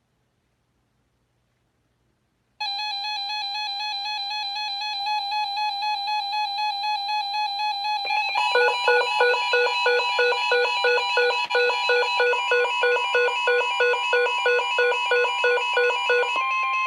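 Electronic weather-radio alert tones. After a short silence, a buzzy pulsing alarm tone starts; about eight seconds in, a quicker alternating low-high beeping joins it, and near the end a steady tone of about 1050 Hz, the NOAA Weather Radio warning alarm tone, sets in ahead of a severe thunderstorm warning.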